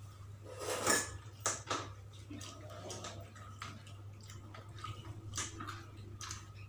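Eating with bare hands: fried chicken and rice squishing between the fingers and against a plate, with mouth smacks and chewing, and a louder smack about a second in. A low steady hum runs underneath.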